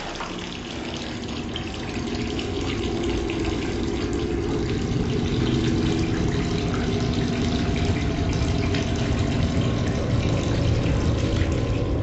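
Water running from a tap into a bathtub already full of water, a steady rush that grows a little louder over the first few seconds.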